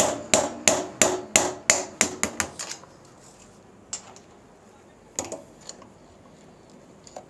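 Hammer beating on a long screwdriver used as a punch to drive the lower steering-head bearing cup (handle cone) out of a Honda CG125's frame: a quick run of about a dozen metal-on-metal blows over the first two and a half seconds, then two lone knocks.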